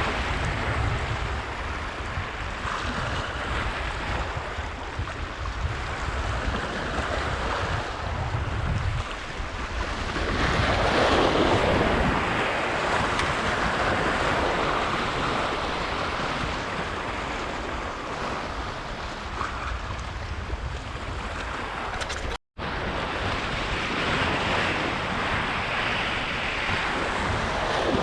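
Sea waves washing against the shore, rising and falling in swells, with wind buffeting the microphone in a low rumble that is heaviest in the first half. The sound cuts out completely for a moment about three-quarters of the way through.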